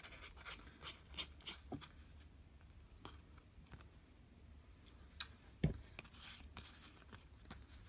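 Faint rustling of paper being handled, with scattered light clicks and a short low thump a little over five and a half seconds in.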